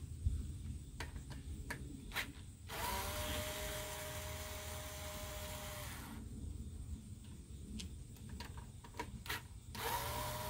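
Cordless drill/driver spinning out a bolt on a Briggs & Stratton lawnmower engine during teardown: the motor winds up quickly and runs steadily for about three seconds, then starts again near the end. A few sharp clicks come before the first run.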